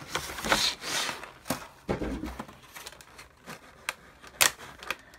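Cardboard box and clear plastic tray packaging being opened and handled: a rustling scrape in the first second, then scattered plastic clicks and taps, the loudest a little over four seconds in.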